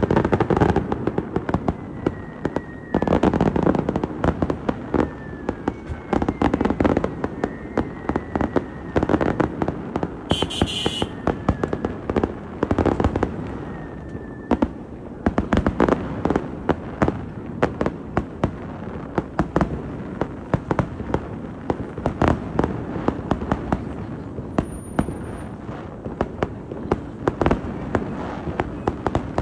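Aerial fireworks display going off in a dense run of sharp crackling pops and heavier booms, with a few short falling whistles in the first half.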